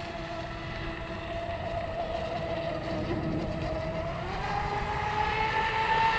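Electric motors of a twin-motor radio-controlled speedboat whining steadily at part throttle. Their pitch sags a little, then rises about four seconds in as the throttle is opened.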